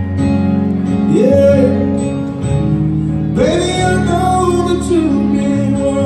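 Live band: a male singer holds two long, wavering sung notes, the second longer, over keyboard and guitar accompaniment.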